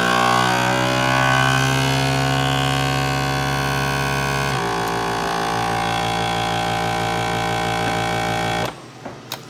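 FoodSaver vacuum sealer's pump running with a steady hum as it draws the air out of a bag, changing tone about halfway through, then cutting off suddenly near the end, followed by a few faint clicks.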